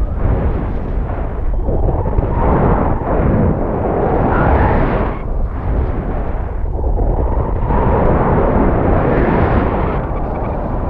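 Wind rushing and buffeting over the payload camera's microphone as the burst balloon's payload falls under its parachute: a loud rumbling noise that swells and eases in waves every few seconds.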